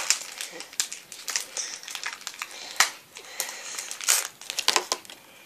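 A foil Pokémon card booster pack being opened by hand, its wrapper crinkling in a run of crackling rustles, with one sharp snap about halfway through.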